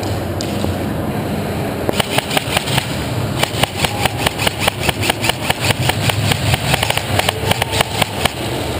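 Airsoft gunfire: a long run of rapid single shots, about four a second, starting about two seconds in, over a steady low hum.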